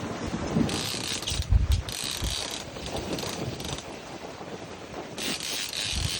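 A mechanical ratchet clicking rapidly in two spells, about two seconds long near the start and a second long near the end, with wind rumble underneath.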